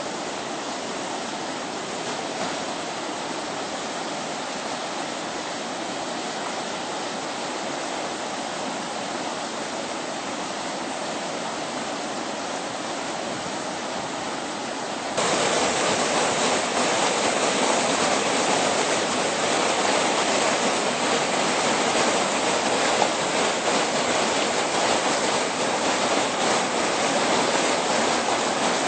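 Steady rush of flowing water. About halfway through it jumps abruptly louder and stays loud.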